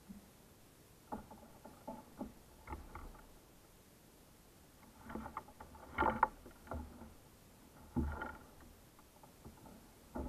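Scattered knocks, clicks and rustles of gear being handled aboard a plastic sit-on-top kayak, with thuds against the hull. The loudest clusters come about six and eight seconds in.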